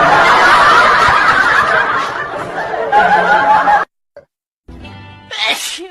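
People laughing and snickering, cut off abruptly about four seconds in. After a moment's silence, a short loud burst with falling pitch comes just before the end.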